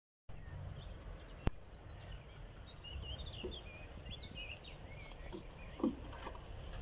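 Small birds chirping over wind rumbling on the microphone, with one sharp click about a second and a half in and a short wooden knock near the end as the lid of a wooden crate is slid off.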